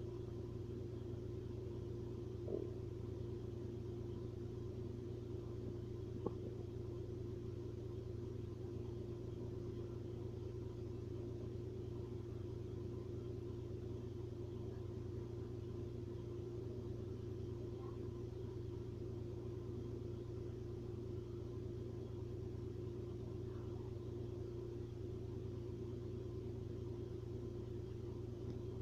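Steady low rumble with a short faint gurgle from the stomach about two and a half seconds in and a soft click about six seconds in.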